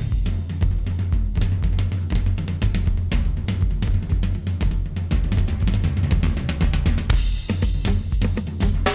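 Opening of a band's recorded track: a drum kit with bass drum, snare and cymbals playing a steady beat over a deep bass line, with a crash cymbal about seven seconds in.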